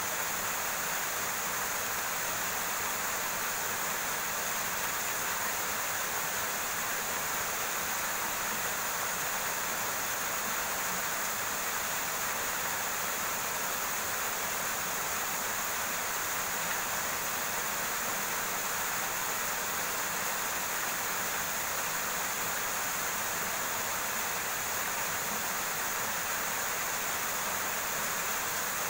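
Steady rushing of a rocky river, an even hiss of flowing water with no breaks.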